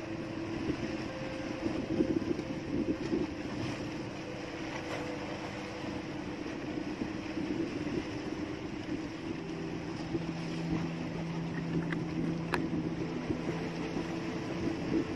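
Outrigger fishing boat's engine running steadily at a low idle, with wind on the microphone and a few light knocks.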